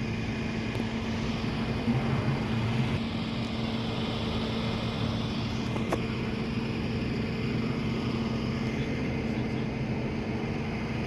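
Steady hum of a vehicle engine running at idle over road-traffic noise, with a single sharp click about six seconds in.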